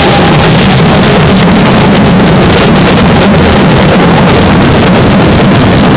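Hand-held firework fountains hissing and crackling as they spray sparks, a continuous dense roar loud enough to overload the recording.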